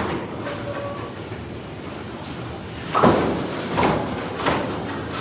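Candlepin bowling alley: a steady rumble of balls rolling down the wooden lanes, then three loud clattering crashes of pins being struck, a little under a second apart, starting about three seconds in.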